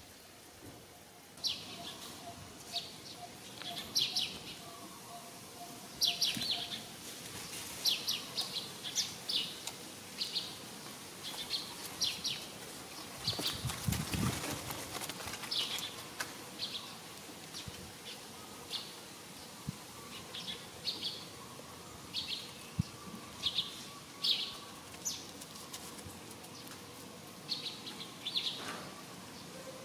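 Small birds chirping: short, high chirps repeating one or two a second, with a brief low rumble about halfway through.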